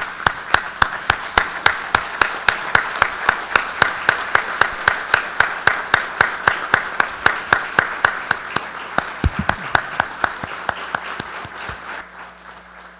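An audience applauding, with one person's sharp claps close to the microphone, evenly at about five a second, over the crowd's clapping. The applause fades out near the end.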